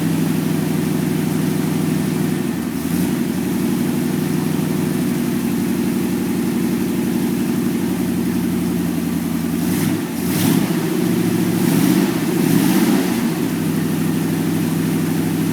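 Freshly rebuilt 1949 Cadillac 331 overhead-valve V8 running steadily just after its first start. Its sound rises and wavers briefly about two-thirds of the way through, then settles back to a steady run.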